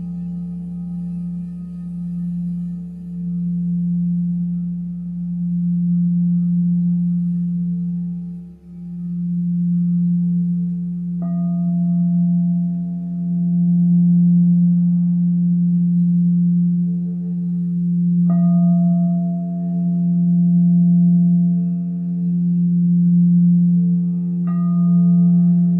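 A large singing bowl sounding one low, steady tone that swells and fades in slow waves as it is played around the rim. A smaller, higher-pitched bowl is struck three times, about seven and six seconds apart, and each strike rings on over the low tone.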